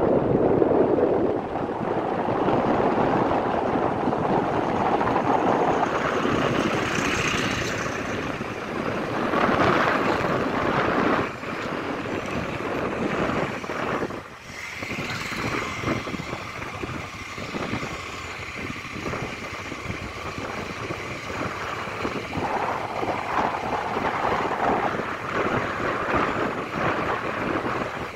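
A steady rush of wind on the microphone mixed with road traffic noise, swelling and easing several times as vehicles pass.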